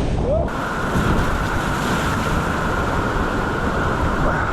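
Loud, steady rush of white-water rapids with wind buffeting the microphone; the rush turns fuller and brighter abruptly about half a second in.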